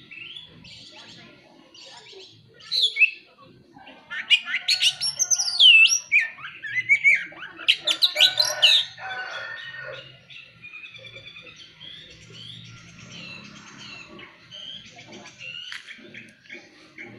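Oriental magpie-robin (kacer) singing in full voice: a loud run of varied, sliding whistles and trills in the middle, with softer rapid chirping before and after.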